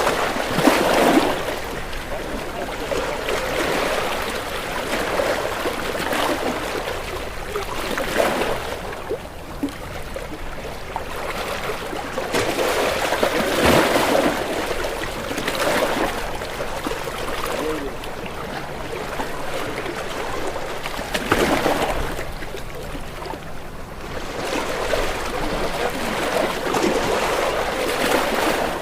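Ocean waves breaking and splashing against rocks, the surf swelling and falling back every few seconds.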